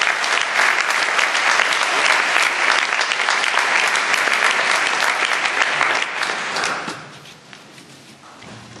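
Audience applauding, a dense, steady clapping that dies away about seven seconds in.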